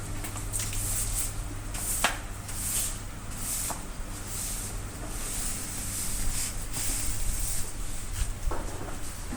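Air conditioner indoor-unit panel being scrubbed clean: repeated hissy rubbing strokes, roughly one or two a second, with a couple of sharp knocks against the plastic about two seconds in and again a little later. A steady low hum runs underneath.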